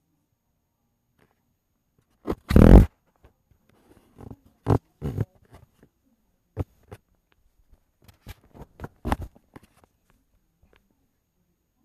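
Phone handling noise: one loud rubbing bump, then a scatter of short knocks and rustles as the phone is swung about and set down on the carpet.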